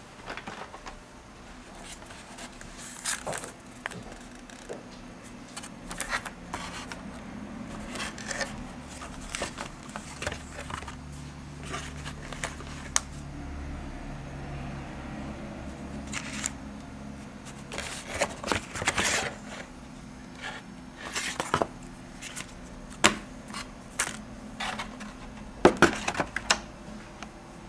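MSI 9500GT graphics card's cooling fan running with a steady hum at a fixed speed that cannot be adjusted, a noise the owner calls unbearable. Frequent sharp clicks and scrapes sound over it, and a deeper rumble swells in from about eleven to seventeen seconds in.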